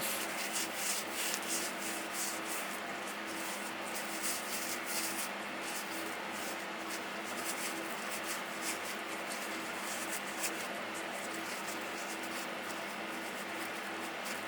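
Wet wipe rubbing over a fuel injector's body in repeated scratchy wiping strokes, with a steady low hum behind it.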